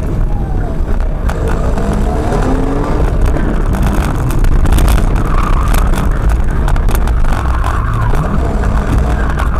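Audi A4 Quattro's 2.8-litre 30-valve V6 driven hard, heard from inside the car: the engine pitch climbs and drops repeatedly through gear changes and lifts off the throttle. Frequent sharp ticks and knocks sound over it, with a hiss of tyres on a loose surface in the second half.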